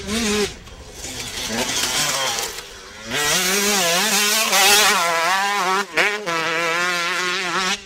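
Motocross dirt bike engine revving, its pitch rising and falling with the throttle as the rider works through the corner; it gets louder about three seconds in, with a brief drop near six seconds.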